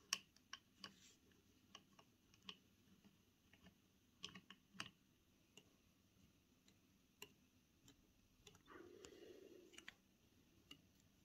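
Faint, irregular small clicks and ticks of a screwdriver turning screws out of a cassette deck's metal transport plate. A brief soft scraping rustle comes about nine seconds in.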